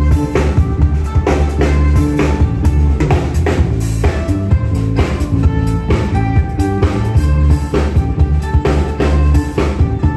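Live band playing: fiddle and mandolin over a drum kit and electric bass, with dense steady drumming and a strong bass line.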